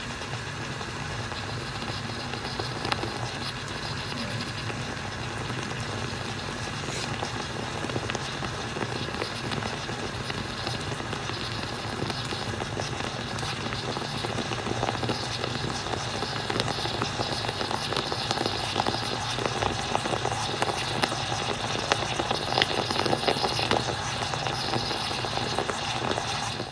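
Stovetop moka pot brewing: a steady hiss full of small crackles and sputters as the coffee is forced up into the top chamber, getting louder and busier in the second half.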